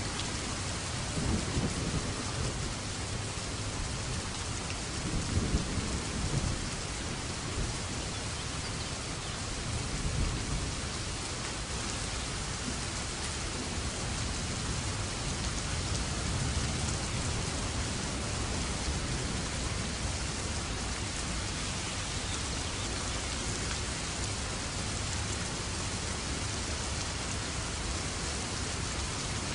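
Steady rain falling, with low rolls of thunder about a second in, again around five seconds in, and once more around ten seconds in.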